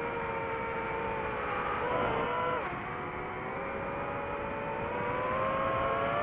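DJI FPV drone's electric motors and propellers whining. The pitch holds, drops sharply about two and a half seconds in, then climbs slowly as throttle is added.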